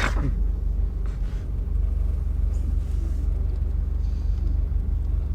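Steady low rumble of a car idling, heard from inside the cabin, with a brief sharp sound right at the start.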